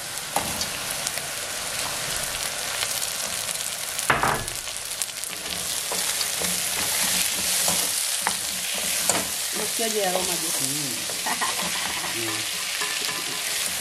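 Beef, onions and spices sizzling in oil in a cooking pot, with a steady frying hiss, stirred with a spoon that clicks and scrapes against the pot. There is a louder knock about four seconds in.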